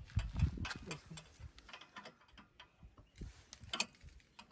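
Irregular metal clicks and knocks of a bike carrier's hitch bolt being fitted into the tow hitch receiver, with a few low thumps in the first second.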